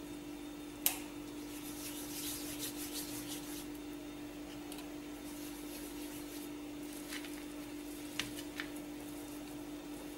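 Hands pressing and rolling a sticky date-and-nut mixture into a log on a stainless steel plate: faint rubbing and squishing, with a sharp click about a second in and two lighter ticks near the end, over a steady low hum.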